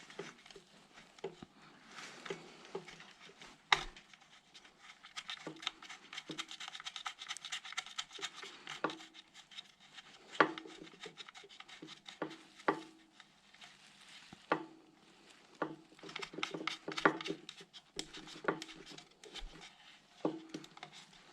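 Handling noises from work on an air compressor's electrical connections: scattered clicks and light knocks with rubbing and scraping between them, and a few sharper taps.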